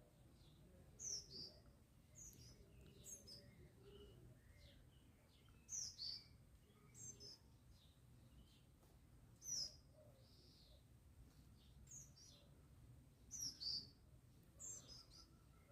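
Baby birds (chicks) cheeping: short, high chirps, often in quick pairs or clusters, every second or two.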